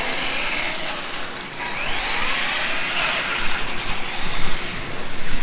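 RC monster truck's motor whining as it drives off across concrete, the whine rising in pitch about two seconds in and falling again as it eases off.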